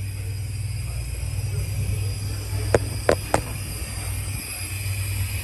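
1987 GMC General truck's engine idling with a steady low hum, and three sharp knocks close together near the middle.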